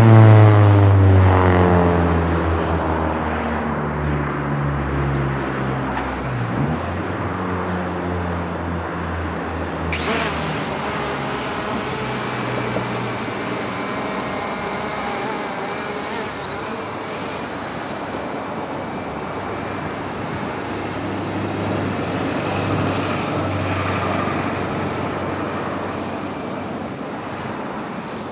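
A car passes close by at the start, its engine note falling. About ten seconds in, a small quadcopter drone's motors spin up and keep running with a steady high whine over traffic noise.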